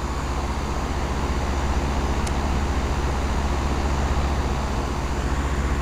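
Two Lennox central air-conditioner condensing units running: a steady low compressor hum under the even rush of air from the condenser fans.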